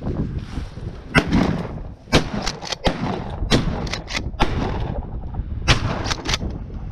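Shotgun fired several times in quick succession, sharp blasts spread over a few seconds, over a low wind rumble.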